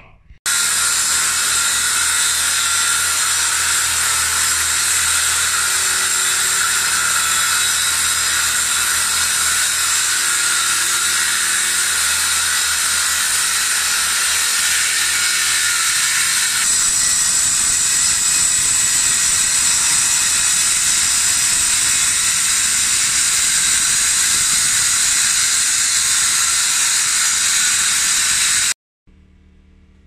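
Corded circular saw cutting through a thin concrete floor slab, running steadily under load with a continuous high whine and grinding. It cuts off abruptly shortly before the end.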